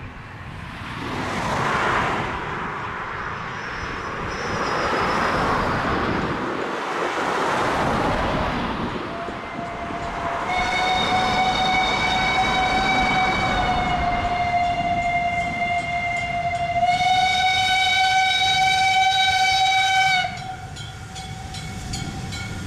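Steam locomotive whistle blown in one long steady blast of about ten seconds. The blast grows stronger partway through and cuts off suddenly, a warning for the level crossing the train is approaching. Before it, cars pass on the road in swells of tyre and engine noise.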